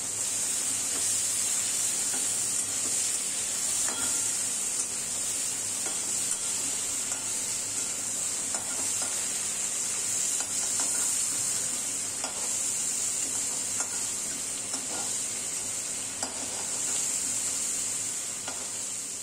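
Prawns frying in mustard oil in a wok, a steady sizzle, with a metal spatula scraping and clicking against the pan now and then as they are stirred and turned.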